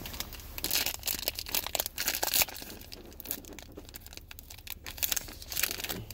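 Wrapper of a Donruss football card fat pack being torn open and crinkled by hand: dense crackling that is thickest in the first two and a half seconds, with another short flurry near the end.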